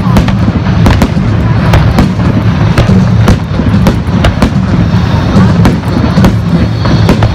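Aerial fireworks shells bursting over and over, a quick run of sharp bangs and crackles, with music playing underneath.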